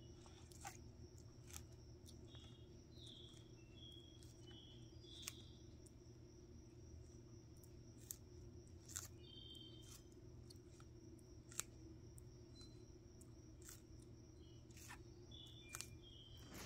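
Faint, sharp crunches every second or two as a Hermann's tortoise bites into and tears romaine lettuce, over a low steady hum. A few faint, short, high chirps come in between.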